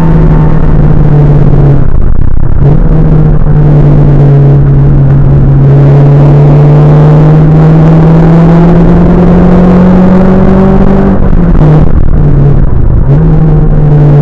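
Renault Clio 182's 2.0-litre four-cylinder engine, heard from inside the cabin, pulling hard under acceleration with its note climbing steadily through a long stretch. The note breaks off briefly about two seconds in, and again near the end, where it drops and picks back up, like gear changes.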